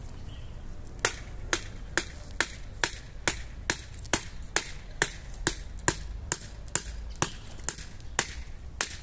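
Kindling sticks being chopped with a blade: a steady run of sharp, evenly spaced strikes, a little over two a second, starting about a second in.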